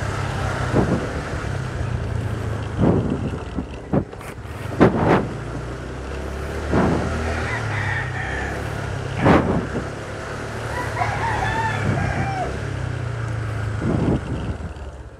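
A rooster crowing, about 8 to 12 seconds in, over the steady low running of a Honda motor scooter's engine at low speed. A few short dull thumps break in along the way.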